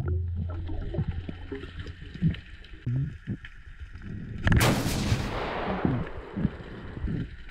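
Underwater sound of a hand pole spear being shot into a fish, recorded underwater: a sudden loud hit about four and a half seconds in, followed by a hiss that fades over about a second and a half. Low muffled thumps come and go before and after it.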